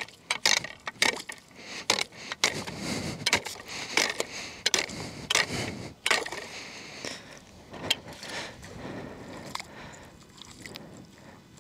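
A heavy steel spud bar chopping a test hole through about 2.5 inches of new lake ice: a string of sharp, irregular strikes with broken ice crunching and clinking. After about eight seconds the strikes stop, giving way to quieter scraping as ice chunks are scooped out of the hole by hand.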